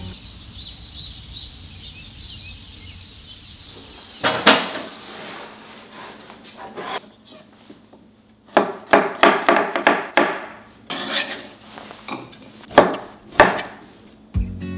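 Birds chirping for the first few seconds, then a wide-bladed kitchen knife chopping through sausage onto a wooden cutting board: a few separate knocks, a quick run of chops about eight and a half seconds in, and two sharp chops near the end.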